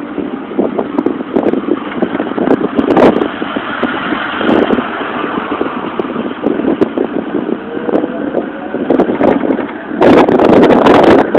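Wind buffeting and flapping against the microphone of a moving Motorino XPD electric scooter, with a faint rising whine from its motor about eight seconds in. The buffeting turns much heavier near the end.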